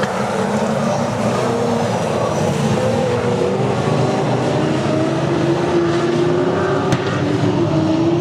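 Saloon race car engines running hard around a speedway oval, their notes rising and falling as the cars accelerate and lift through the turns. There is a single sharp click about seven seconds in.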